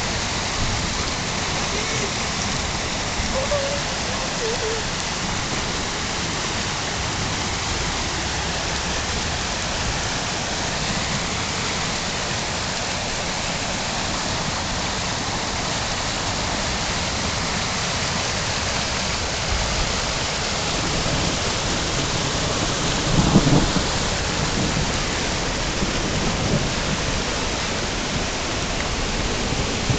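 Heavy rain pouring onto a flooded street, a steady hiss of rain striking standing and running water. About two-thirds of the way through there is one brief, louder low thump.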